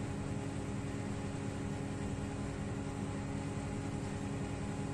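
Steady background hum and hiss with a few constant low tones, and no clicks or knocks.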